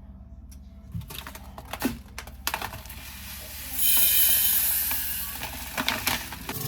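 A few light knocks of kitchenware, then water running from a kitchen tap in a steady rushing hiss that swells about four seconds in and eases off.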